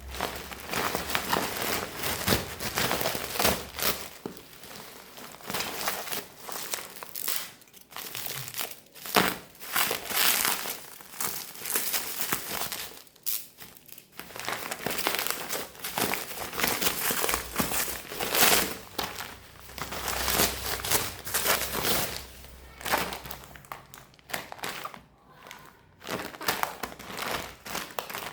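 Packaging crinkling and rustling in irregular bursts as it is handled and unwrapped, with a few brief pauses.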